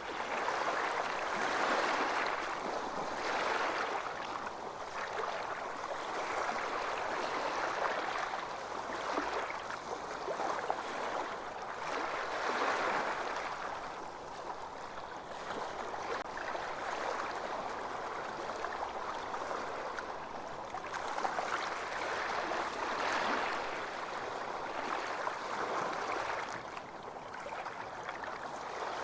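Ocean waves washing up on a beach, a continuous rush of water that swells and fades every few seconds.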